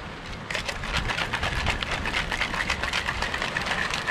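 Ice rattling inside a metal cocktail shaker being shaken hard: a fast, steady clatter that starts about half a second in.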